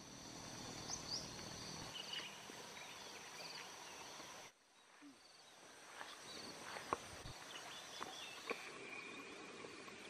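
Rice-field ambience: a steady high insect buzz with scattered short bird chirps. The sound drops suddenly about halfway through, then builds back up.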